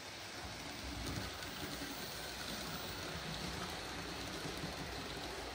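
OO gauge model steam locomotive and coaches running along the track, a steady rumbling whirr of motor and wheels on rail that grows louder about a second in as the train comes close.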